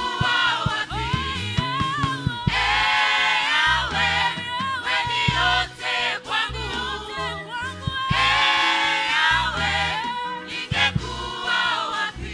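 Gospel music: a choir singing in Swahili over a band with a bass line.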